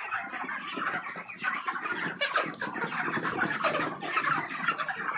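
A large flock of broiler chickens calling all at once: many overlapping clucks and cheeps in a dense, unbroken chatter.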